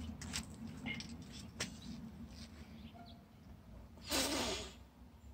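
A child blowing one short puff of breath at a bubble wand, a rush of air about four seconds in lasting under a second. Faint clicks and light taps from handling the plastic wand come before it.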